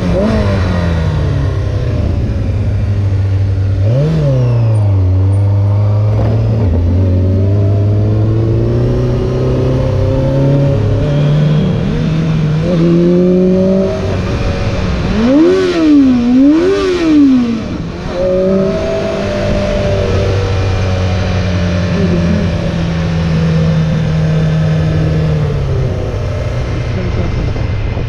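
Honda CBR600F4 carbureted inline-four motorcycle engine heard from on the bike: idling with a couple of short throttle blips, then pulling away and climbing steadily in revs. About halfway through the revs shoot up and drop back twice in quick succession, the loudest moments, before the engine settles into a steady cruise and eases off near the end.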